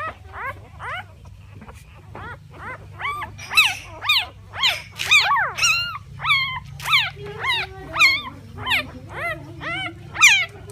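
Newborn three-day-old puppies whimpering and squeaking: a rapid string of short, high-pitched cries, each rising then falling, two or three a second. Several pups call over one another, growing louder a few seconds in.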